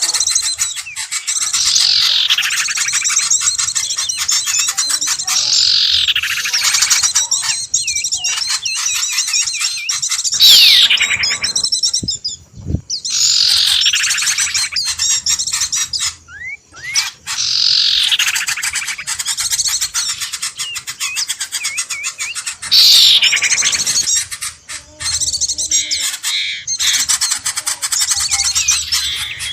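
Bird-lure recording: a dense chorus of small birds chirping and squawking, with a loud, sharp downward-sweeping call cutting through every five seconds or so.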